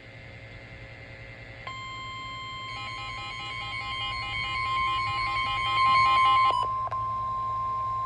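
Emergency Alert System warning tone: a steady high-pitched alert tone starts a little under two seconds in. From about a second later it is joined by a fast alternating beeping alarm, which stops about two-thirds of the way through while the steady tone carries on.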